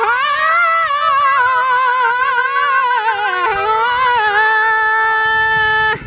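A man singing a long wordless, ornamented Balochi vocal line whose pitch wavers and slides, then settles on a held note, over a steady instrumental drone from bowed fiddle and lutes. The music breaks off just before the end.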